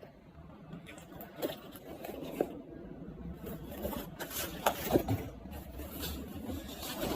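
Packaging and a bag being handled up close: soft rubbing and scraping with small clicks and ticks scattered throughout.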